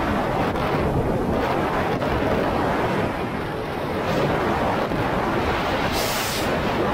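Steady rush of wind on the microphone and water streaming past a jet ski running at speed, with the watercraft's engine drone mixed in. A short, sharper hiss about six seconds in.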